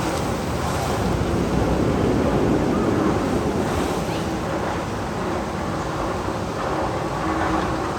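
A roller-coaster tunnel sound effect: a steady rushing noise like wind or surf, with a faint steady hum underneath.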